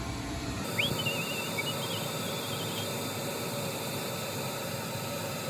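Gas furnace starting its heating cycle: the inducer (draft) motor runs with a steady hum ahead of ignition. For about two seconds near the start there is a high, wavering squeal.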